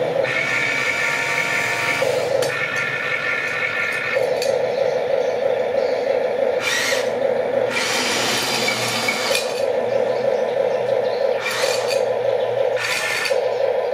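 Electric motors and plastic gearboxes of a Huina remote-control excavator whirring, the pitch switching every second or two as different boom, arm and track functions start and stop. Several short rasping bursts come in the second half.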